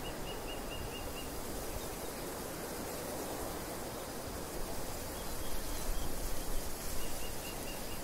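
Steady wind over an open field, with a low rumble of wind on the microphone. A small bird repeats a short high chirp, about five a second, in a quick run at the start and again near the end.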